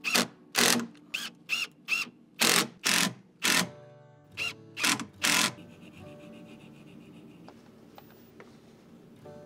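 Cordless impact driver run in about ten short trigger bursts, driving screws and drilling into plywood, each burst with a quick motor whine up and down. After about five and a half seconds only soft background music remains.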